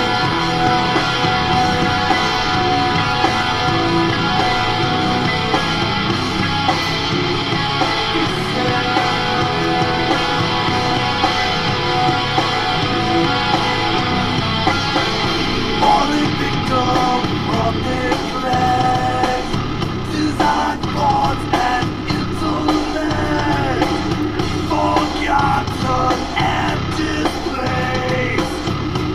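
Rock music with singing, heavier and more vocal toward the end.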